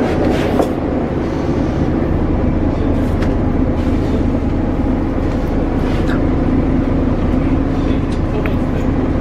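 City bus running, heard from inside the passenger cabin: a steady drone of engine and road noise, with a few light clicks and knocks.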